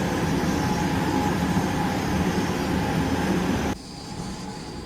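Oil/gas boiler burner firing in a boiler room: a steady rumbling roar with a low hum, which drops off abruptly a little under four seconds in, leaving a quieter hiss.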